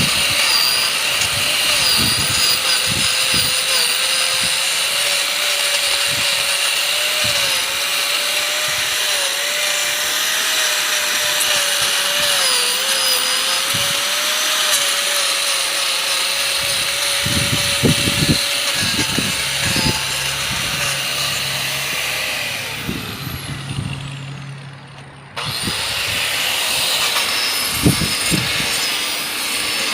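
Handheld power carving tool running and cutting into wood, its motor tone wavering a little under load. About 23 seconds in it winds down and fades, then the running sound comes back suddenly a couple of seconds later.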